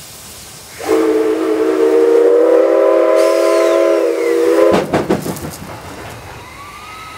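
Steam whistle of the JNR C56 steam locomotive sounding one long chord-like blast of several tones, lasting about four seconds. It cuts off with a few sharp bursts of noise, and a softer hiss follows.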